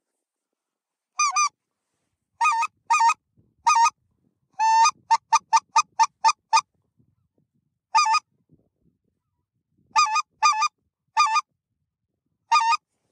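Goose honks: a few single, spaced honks, a longer one followed by a quick run of about eight honks in a row near the middle, then more spaced single honks.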